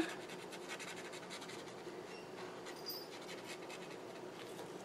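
Faint scratching of a water-soluble brush marker's nib stroking back and forth on paper.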